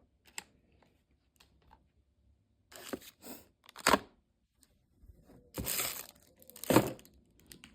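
Handling noise: a series of short rustling and scraping bursts as things are moved about while searching for a small bolt, with the loudest scrape near the end.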